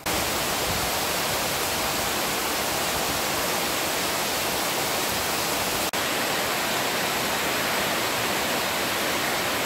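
Heavy tropical downpour: a steady, dense rush of rain that cuts out for an instant about six seconds in.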